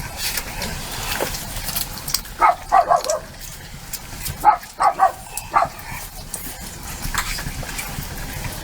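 An animal calling in two runs of short, quick yelps, about two and a half and four and a half seconds in, over light clatter.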